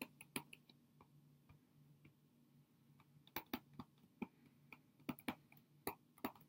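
Faint, irregular clicks and taps of a stylus writing on a tablet screen, with a quiet gap of about two seconds after the first second.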